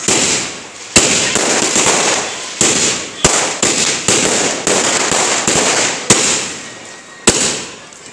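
Multi-shot aerial fireworks cake firing in rapid succession: about a dozen sharp reports, roughly one or two a second, each followed by a fading crackling hiss.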